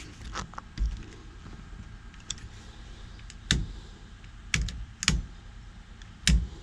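Small parts being handled and fitted in a truck's steering column during turn signal work: a string of sharp, irregular clicks and taps, about seven in all, louder in the second half.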